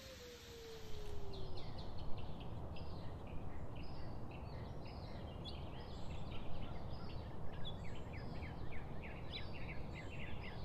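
A coyote howl sliding down in pitch and fading out in the first second and a half. Then small birds chirping busily, many short calls, over a steady low background noise.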